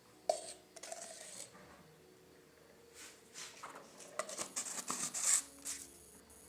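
Kitchen handling noises: a sharp clink with a short ring, then a run of light clicks with rustling and scraping a few seconds later.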